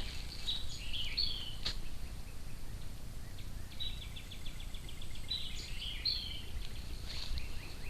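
Songbirds calling over a low steady background noise: high chirps about a second in, a quick trill of rapidly repeated notes around four seconds, then more chirps near six seconds.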